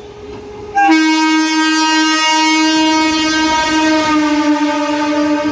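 Kolkata EMU local train running through the station at speed, its approach growing louder until about a second in. Then the horn cuts in with one long, steady blast that is held to the end.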